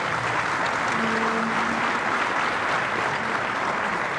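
Audience applauding steadily, welcoming a speaker who has just been introduced.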